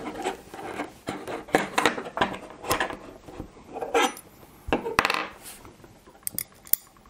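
Small black metal CPU-cooler mounting parts, brackets and screw-in standoffs, clicking and clattering against each other and the tabletop as they are handled and fitted together. The taps come irregularly and die down in the last second or two.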